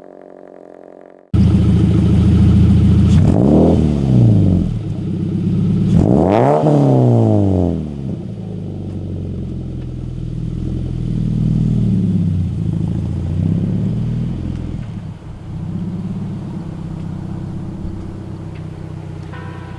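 Subaru BRZ's flat-four boxer engine running, revved up and back down twice within the first few seconds, then running at a lower, slightly uneven speed.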